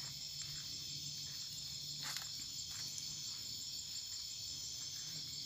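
Steady night chorus of insects trilling, with a faint click about two seconds in.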